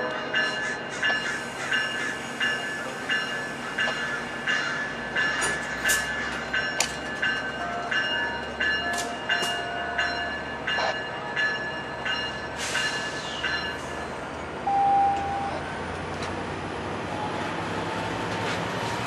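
Amtrak California bilevel passenger cars rolling past at a station platform: their wheels click rhythmically over the rail joints, a little under two clicks a second, fading into a steadier rolling rumble about three quarters of the way through.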